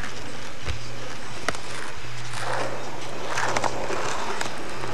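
Skateboard wheels rolling on asphalt, with a sharp click about a second and a half in and a few knocks around three and a half seconds, over a steady low hum and hiss.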